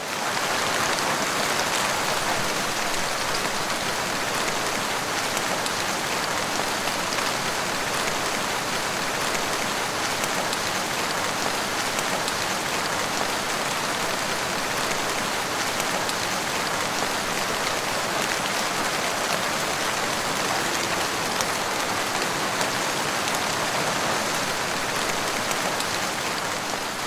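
Heavy rain falling steadily, a dense even patter of drops on surfaces with no thunder.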